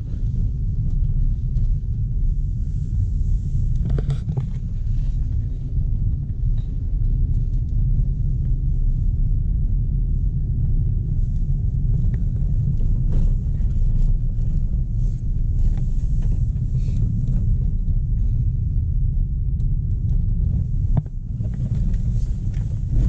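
Car driving on a rough dirt road, heard from inside the cabin: a steady low rumble of tyres and engine, with scattered knocks and clicks from the uneven surface.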